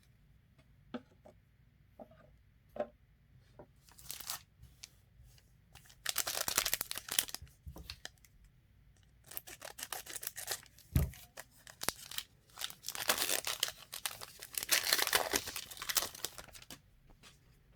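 Trading card pack wrapper being torn open and crinkled, in several rips and rustles. A few light clicks come first as cards are handled.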